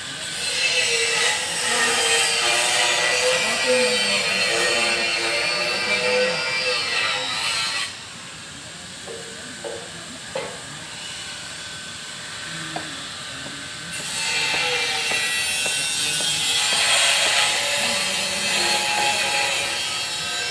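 Power tool working on steel, with a loud high-pitched wavering whine, in two spells: one of about eight seconds, then a quieter stretch with a few clicks, then the tool again from about fourteen seconds.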